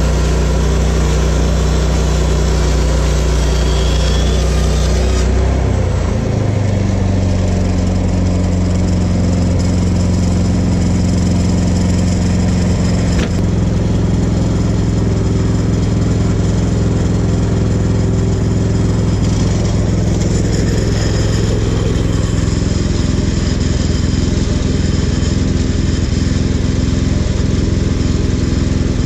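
Portable band sawmill's gas engine running steadily. About five seconds in, its pitch rises as it is throttled up, then holds steady.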